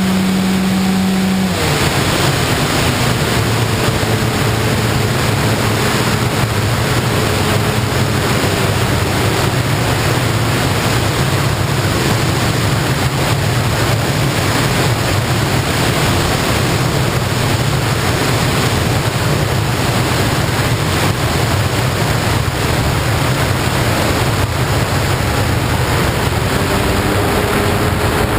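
Loud, steady rush of air on the microphone of an onboard camera on a small FPV plane in flight. The motor and propeller hum as a strong steady tone for the first second or so, then drops to fainter, wavering tones that come back near the end.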